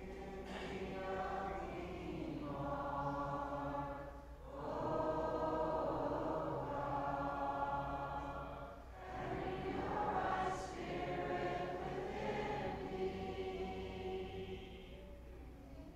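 Church congregation singing a hymn together in sustained phrases, trailing off near the end.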